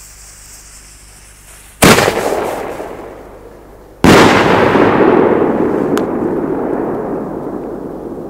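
Pyroco 50mm single-shot firework: a loud bang as the lift charge fires, then about two seconds later a second loud bang as the shell bursts overhead, trailing off in a long, slowly fading rumble of echo.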